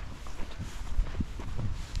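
Footsteps of a person walking on a hiking trail: an uneven run of short, low footfalls, a few to the second.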